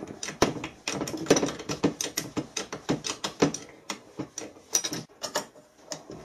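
A spanner working the clamp bolts on a turbocharger's compressor housing: a run of quick metallic clicks and clinks, several a second and unevenly spaced, thinning out near the end.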